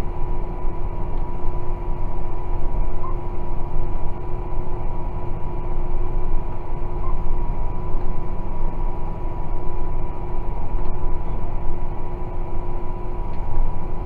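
John Deere 6190R tractor's six-cylinder diesel engine, heard from inside the cab, running steadily under load while pulling a plough. It is a low drone with two steady whining tones over it.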